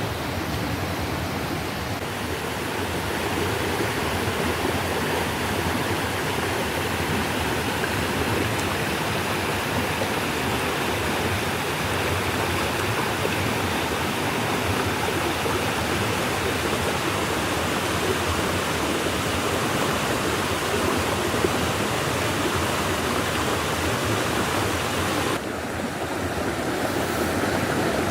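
Steady rushing noise of running water, whose high hiss drops away suddenly near the end.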